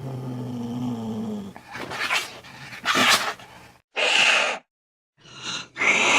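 Angry cat growling low, then hissing in short, sharp bursts about one a second: a threat display.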